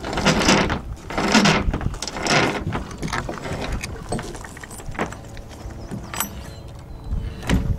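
A rope halyard hauled through a deck block in three pulls, each a rush of rope noise, followed by scattered light clicks and knocks of the rigging.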